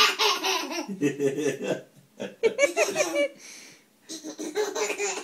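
A baby laughing in repeated fits of giggles while a cat licks its toes. About a second in, a lower voice laughs along briefly.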